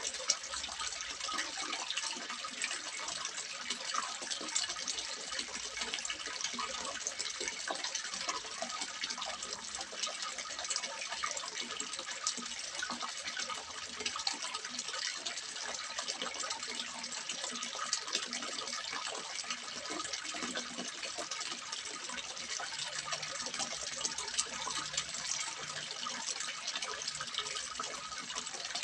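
Water splashing steadily into a small fish pond, an unbroken patter of many small splashes.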